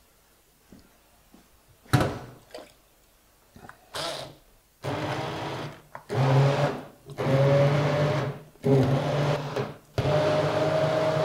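Electric blender puréeing a cream soup with freshly added wild herbs. After a couple of knocks, the motor runs in several short bursts and then keeps running near the end.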